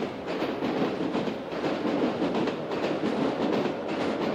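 A passenger train running past on the tracks close by, a steady rumble with a regular clatter of the wheels.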